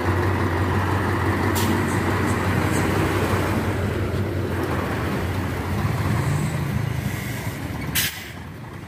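Diesel truck engines running close by, a steady low drone as a light truck drives past and a dump truck manoeuvres. A short sharp hiss comes about eight seconds in, and the engine noise then drops away.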